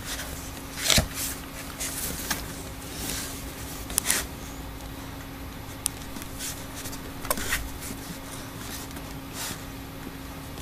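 A small dog digging and nosing inside a cardboard box: scattered scrapes and rustles of cardboard, the loudest about a second in and around four seconds in, over a steady low hum.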